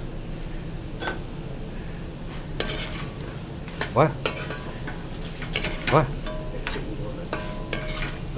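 Potatoes sizzling in oil in a wok while a metal ladle stirs them, clicking and scraping against the pan from a few seconds in, with two loud rising scrapes about four and six seconds in.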